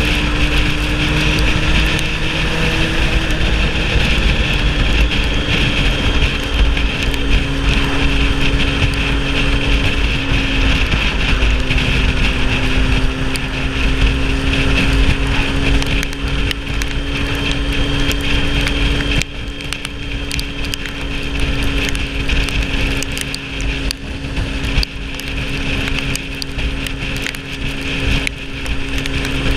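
Sport motorcycle's engine running steadily at cruising speed, its note dipping slightly about ten seconds in, with heavy wind rumble over the microphone. The whole sound gets a little quieter about two-thirds of the way through.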